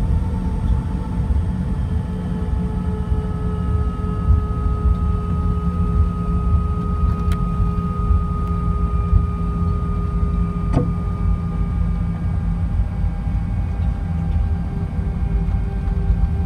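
Cabin noise of an Airbus A320ceo taxiing: a steady low rumble with the engines' whine tones drifting slowly lower in pitch. Two brief clicks, one about halfway through and one a few seconds later.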